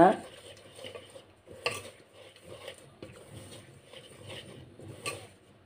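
Hand mixing gram flour with spices in a stainless steel bowl: soft rubbing and scraping of the mix against the bowl, with a couple of light knocks on the metal.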